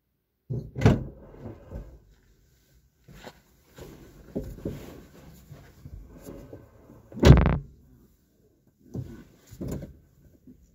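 Several irregular knocks and thumps, like a door or something being handled, with the loudest a heavy thump about seven seconds in.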